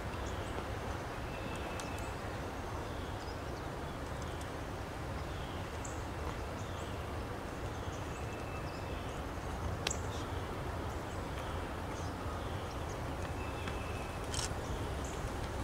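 Birds calling in woodland, one repeating a short falling note about every two-thirds of a second, with now and then a thin held whistle, over a steady low rumble.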